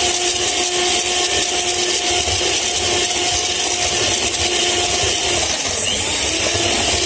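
Electric hand mixer running steadily, its beaters whirring through cake batter in a glass bowl. The motor's whine drops lower about five seconds in.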